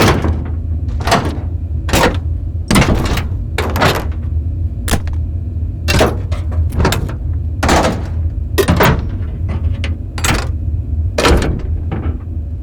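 Large industrial metal levers and switches being pulled and thrown: a series of sharp metal clanks and clunks, roughly one a second, some in quick pairs. Under them runs a steady low rumble of factory ambience.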